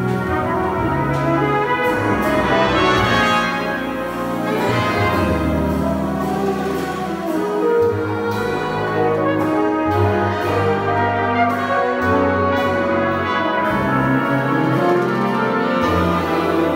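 Jazz big band playing, the brass section carrying the passage in held chords that change every second or two over a low bass part.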